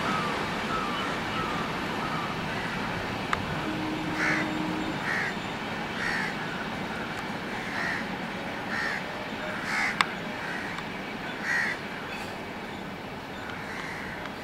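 Bird calls repeating about once a second, over the steady rumble of a passenger train moving away along the track.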